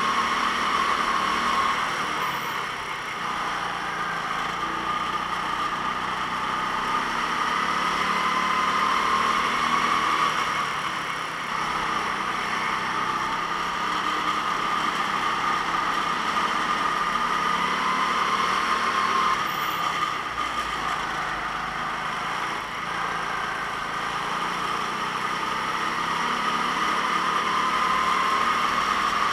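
Racing kart engine running at speed, its pitch climbing and dropping again several times as the kart accelerates and slows.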